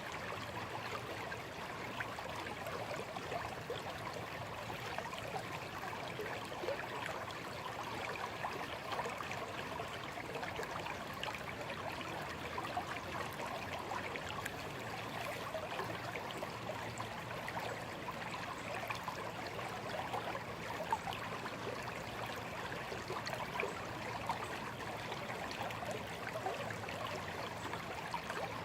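A small stream flowing and trickling steadily over stones, with a continuous babble of fine splashes.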